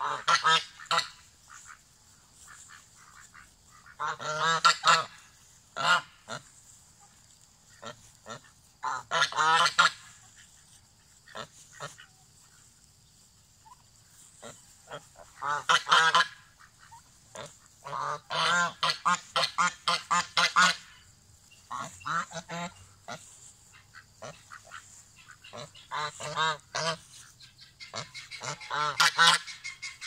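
Domestic Chinese geese honking in repeated bouts of several quick calls, with quieter gaps of a few seconds between bouts.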